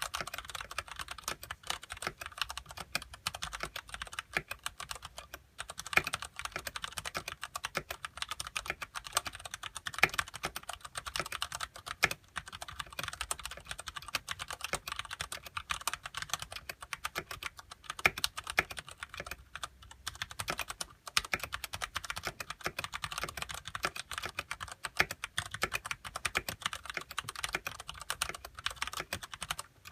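Fast, continuous typing on a Ducky Shine Mini mechanical keyboard with Cherry MX Brown switches and stock ABS keycaps, a rapid run of key clacks with a few short pauses.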